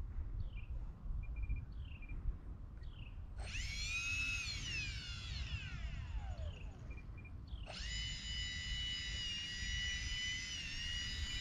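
Twin electric ducted fans of an E-flite A-10 Thunderbolt II RC jet spooling up with a high whine, winding down over a few seconds, then spooling up again about two-thirds of the way in and held steady. Short falling bird chirps come before the first run-up, and wind buffets the microphone with a low rumble.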